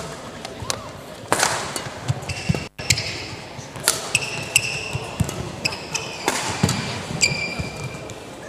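Indoor sports-hall sounds of badminton play on neighbouring courts: sharp, scattered hits and sneakers squeaking on the court floor in short high squeaks, echoing in the large hall.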